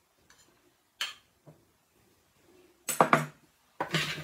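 Metal teaspoon clinking against a butter dish and a bowl of raw squash chunks: a few light clicks, then louder clattering about three seconds in as the spoon starts stirring the chunks.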